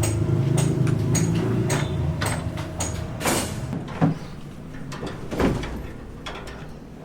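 Construction work: a low steady machine hum with sharp clicks about twice a second, the hum fading out about three seconds in, followed by a few louder separate knocks.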